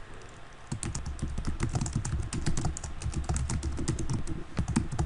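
Fast typing on a computer keyboard, a quick run of key clicks with soft thuds under them, starting about a second in.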